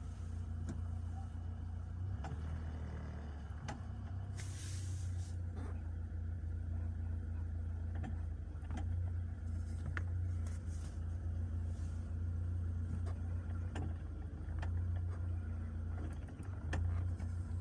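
UAZ Patriot engine idling steadily, with several sharp knocks at irregular intervals from the clutch and gearbox area as the clutch pedal is pressed with reverse gear engaged. The knock is an unexplained fault that the owner cannot diagnose.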